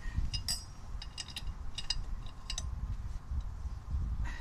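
Steel socket and breaker bar clinking against the wheel's lug nuts: a string of light, ringing metallic clicks over the first two and a half seconds, then only low handling rumble, as the bar is worked on and off nuts that are too tight to budge.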